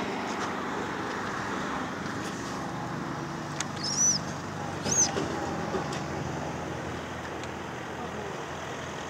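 Steady hum of motor-vehicle noise, with two short high chirps about four and five seconds in.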